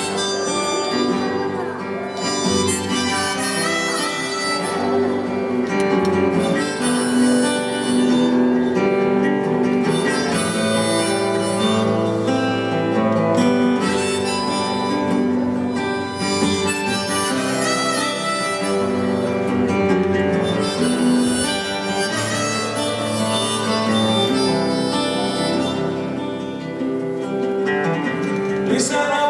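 Live band playing an instrumental passage of a song: a sustained lead melody over steady chordal accompaniment.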